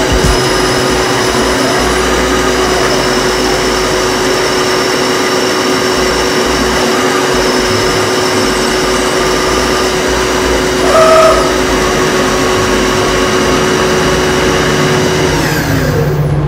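CNC bed mill running, with a steady whine from its inverter-driven 7.5 HP spindle motor and axis drives. A brief higher tone sounds about eleven seconds in. Near the end the spindle's pitch slides down as the roughly two-minute program finishes and the head retracts.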